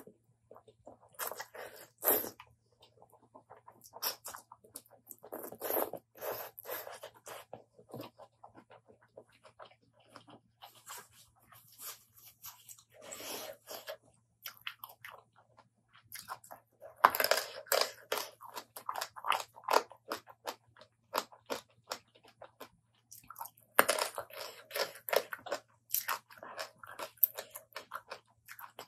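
Close-miked eating of spicy apple snail salad with rice noodles: wet chewing and crunching in irregular bursts with short pauses. A faint steady low hum sits under it.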